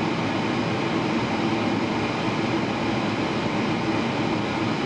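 Steady cabin rumble inside a Boeing 777-300ER rolling along the ground after landing: engine noise and wheel rumble with an even hiss, without change.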